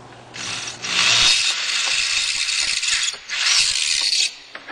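Power drill with a small bit boring holes into a car's dashboard panel, running in three bursts with short breaks between them, the middle burst the longest at about two seconds.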